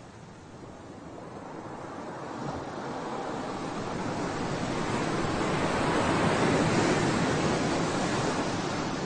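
Sea waves breaking on the shore: a wash of surf that builds slowly to a peak a little past the middle and then eases off, with some wind on the microphone.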